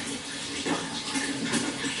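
Water flowing steadily, with small irregular splashes.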